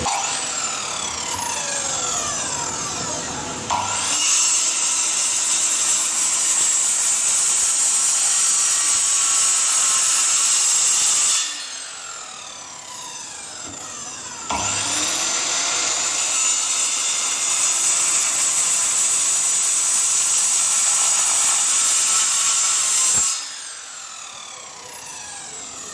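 Prescott PT0823505 electric circular saw cutting through a wooden board twice, each cut lasting about seven seconds. Between and after the cuts the motor spins down with a falling whine, and it spins up again for the second cut.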